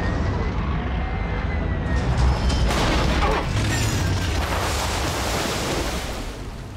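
Film sound effects of the Razor Crest spaceship flying damaged, fire bursting from its hull: a heavy low engine rumble, swelling into a loud rushing, booming blast about three seconds in that fades toward the end.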